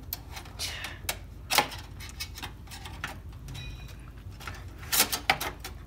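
Scattered sharp clicks and taps of hands handling parts inside a steel desktop PC case, the loudest about a second and a half in and a small cluster near the end.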